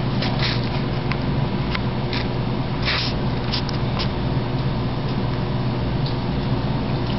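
Steady low hum with a scattering of short, irregular clicks over it.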